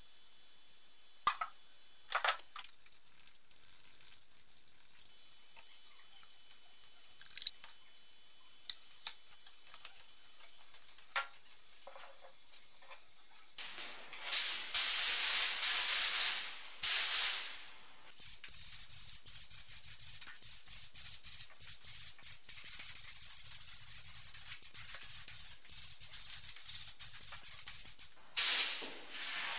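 Air-fed gravity spray gun spraying paint. It fires in a few short bursts, then runs as one long hissing pass for about ten seconds, then gives another short burst near the end. Before the spraying, in the first half, there are only a few light knocks and clicks.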